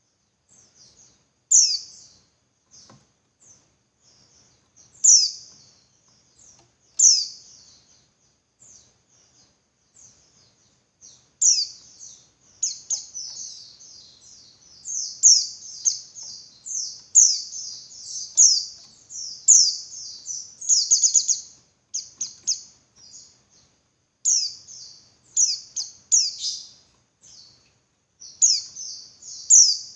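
Female white-eye (pleci) calling: high, thin chirps with quick downward sweeps, a few single calls at first, then rapid runs of chirps from about a third of the way in.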